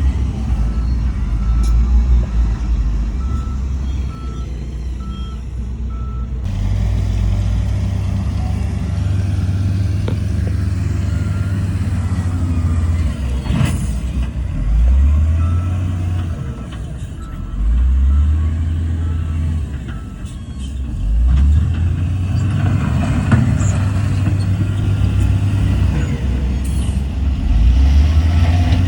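Heavy diesel engines of a bulldozer and dump trucks working, the engine note rising and falling several times as they load up and ease off. A reversing alarm beeps steadily near the start and again about halfway through.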